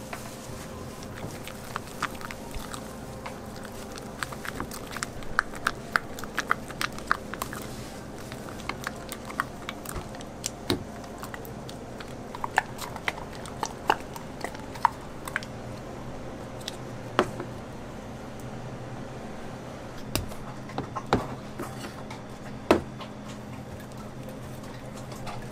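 Spatula mixing thick cream cheese frosting in a bowl, making irregular sticky clicks and squelches as it folds through, then spreading it over the top of a cake. A faint steady hum lies underneath.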